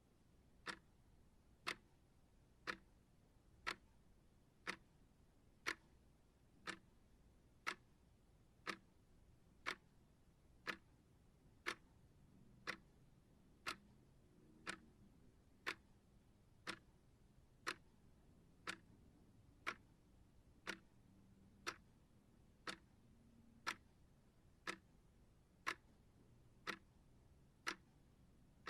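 Clock-style timer ticking steadily, one sharp tick a second.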